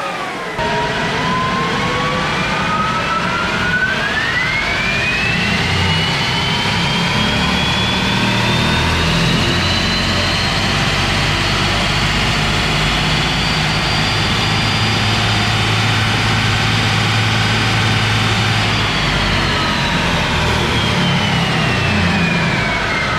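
Ford F-150 Lightning's dual electric drive motors whining over tyre and dyno-roller rumble during a run on a four-wheel chassis dyno. The whine dips at first, climbs steeply in pitch about four seconds in as the truck accelerates, holds high, then falls away near the end as it slows.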